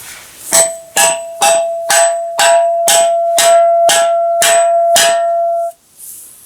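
Hammer blows on stone: ten sharp strikes, about two a second, each with a high metallic ring that carries on between blows and cuts off shortly after the last.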